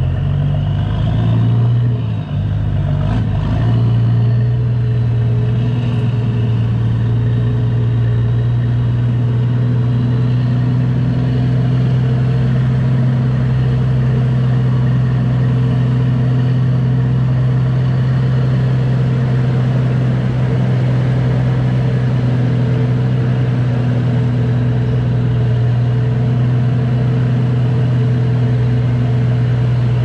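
Kenworth semi tractor's straight-piped diesel engine pulling a loaded lowboy trailer at low speed, a steady deep drone. Its note shifts and wavers in the first few seconds, then holds steady.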